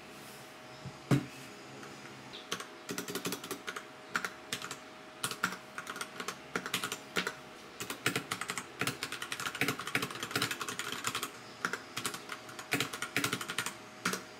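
Typing on a Royal Kludge RK61 mechanical keyboard: fast, irregular key clicks that start about two and a half seconds in, after a single louder knock about a second in.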